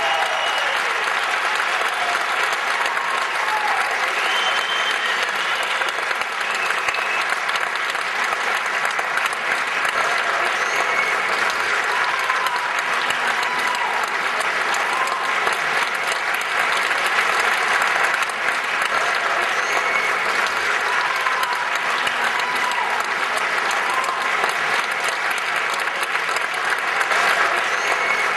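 Theatre audience applauding steadily, with a few cheers rising above the clapping.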